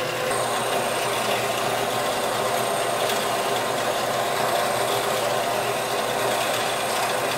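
Vertical bandsaw running and cutting lengthwise through a square brass bar: a steady machine hum with the blade rasping through the metal, and a thin high whine above it.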